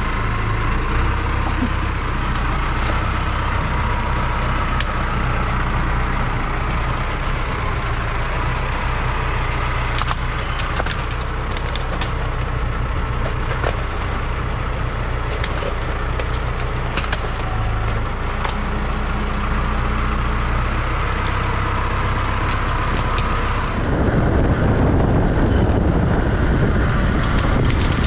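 A vehicle engine running steadily, with scattered clicks and rattles over its low hum. About 24 seconds in the sound cuts abruptly to wind buffeting the microphone.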